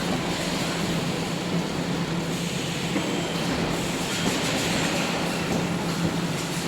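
Wire mesh welding machine running: a steady mechanical din with a constant low hum underneath, with no clear breaks or single impacts standing out.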